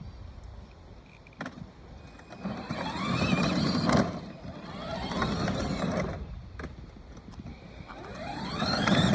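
A vehicle passing by twice, about three seconds in and again near the end: a noisy rush with a whine that rises and falls in pitch, swelling and then fading.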